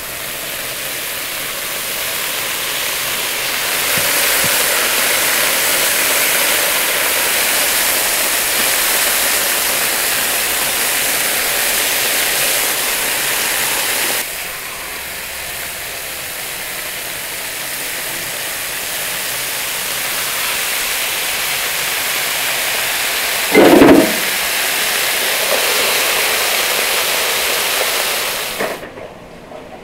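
Chicken and potato slices sizzling loudly on a hot griddle plate, the sizzle swelling over the first few seconds as marinade is poured on. Near the end there is a short loud thump as a heavy iron press is set down on the chicken.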